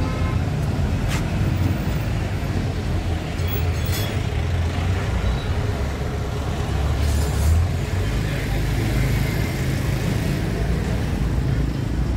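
Street traffic ambience: a steady rumble of passing vehicles with people talking in the background, and a brief louder hiss about seven seconds in.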